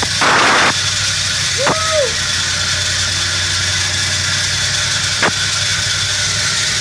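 Dodge B200 Tradesman van's engine running steadily on its newly fitted carburetor, heard from inside the cab while the van drives slowly. There is a short hiss just after the start, a brief squeak that rises and falls about two seconds in, and a click about five seconds in.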